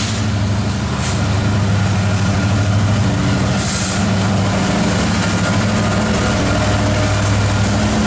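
EMD SD70ACe diesel locomotives, with two-stroke V16 EMD 710 engines, running under power as they pull a coal train slowly past close by. The steady low engine drone grows louder in the first second as the lead unit draws near. A brief hiss comes about three and a half seconds in.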